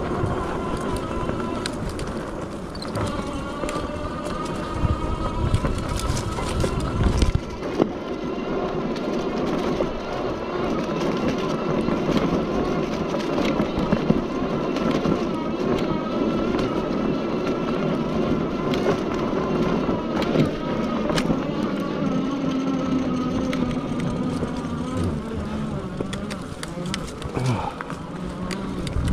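Zugo e-bike's electric motor whining steadily while riding over a rough trail, with tyres crunching and the bike rattling and knocking over bumps. A low rumble runs through the first seven seconds or so, then drops away.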